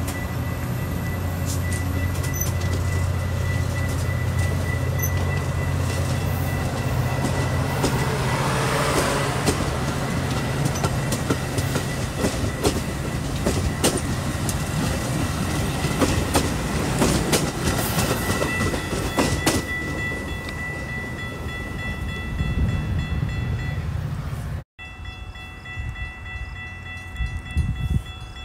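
Metra bi-level stainless-steel commuter train rolling past the platform: a steady low diesel rumble that eases after about twelve seconds, with sharp wheel clicks over the rail joints. The sound cuts off abruptly near the end.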